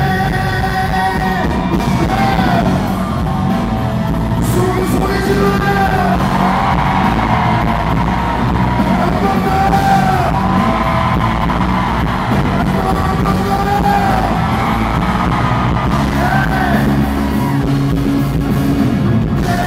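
Male singer belting a song live through the PA over a full band, with long held notes that waver in vibrato, heard from the audience in a large concert hall.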